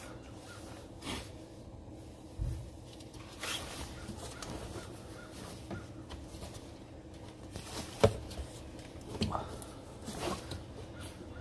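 Scattered clicks and knocks of a plastic engine air intake duct and hose being handled and worked loose in a car's engine bay, with the sharpest knock about eight seconds in.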